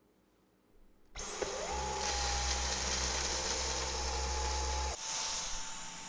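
Dyson V11 Torque Drive cordless stick vacuum switching on about a second in: its motor whine climbs in pitch and settles into a steady high whine. A low hum underneath drops away about a second before the end while the whine runs on.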